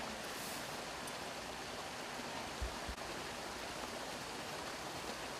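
Steady even rushing hiss of outdoor background noise, with two soft low thumps a little past halfway.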